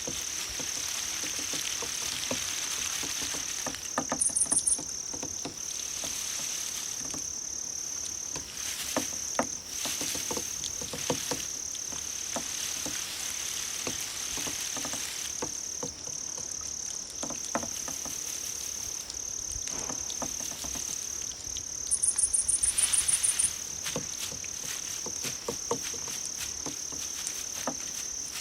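Crickets and other grass insects chirping: a steady high trill throughout, joined twice by a louder, higher-pitched, rapidly pulsed chirp, first briefly about four seconds in and again for about a second and a half past the middle, over faint scattered clicks.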